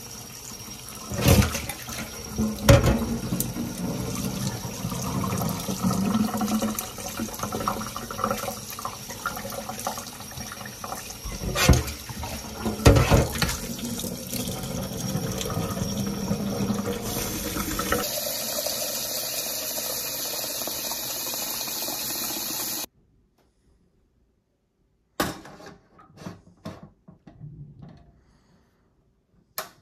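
Tap water running into a stainless mesh sieve of rice noodles held over a bowl in a steel sink, with a few loud knocks twice early on and twice about halfway through. The water stops abruptly about three-quarters of the way through, and a few light clicks and knocks follow.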